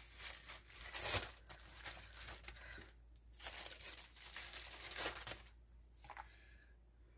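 Fresh scallions being handled and torn by hand: a run of short, faint crinkling and tearing sounds, loudest about a second in, that die away after about five and a half seconds.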